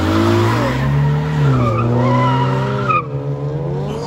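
Chevrolet Camaro's engine revving hard, the pitch rising and falling as the car drifts away, with tires squealing over it. The squeal stops suddenly about three seconds in and the engine carries on quieter.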